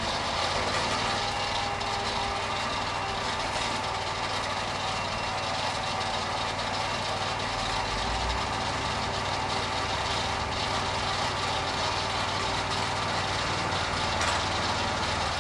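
Lucas portable sawmill's engine idling steadily.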